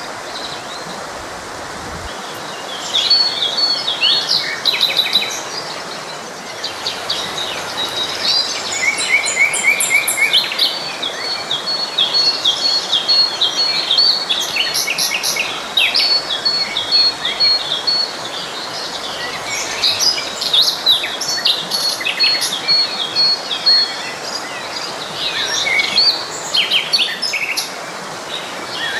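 Several songbirds chirping and trilling, with some fast runs of short, evenly repeated notes, over the steady rush of a forest stream.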